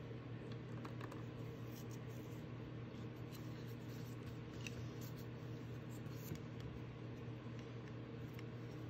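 A steady low hum, with a few faint, scattered clicks and taps.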